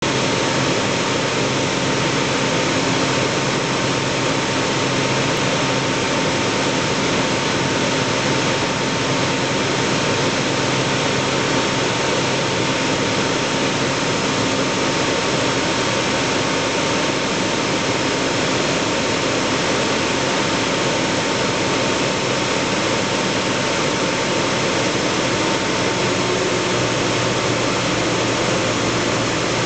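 Single-engine propeller airplane heard from inside the cabin in flight: the engine and propeller drone steadily under a constant rush of air.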